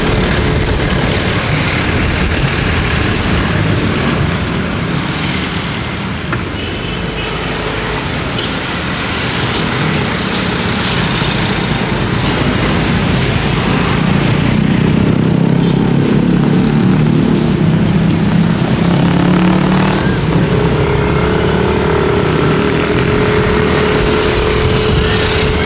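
Ride in a small motor vehicle through night-time street traffic: the engine running with steady road and wind noise, a lower engine drone growing louder about halfway through.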